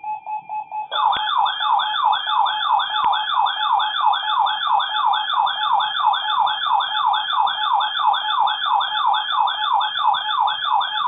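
Electronic alert siren yelping, sweeping up and down just under three times a second over a steady high tone. The steady tone pulses on its own for the first second before the siren starts.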